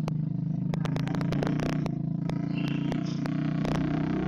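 Hero Splendor's single-cylinder four-stroke engine running steadily through an open Akrapovic exhaust with its dB killer removed, with irregular sharp ticks over the steady note.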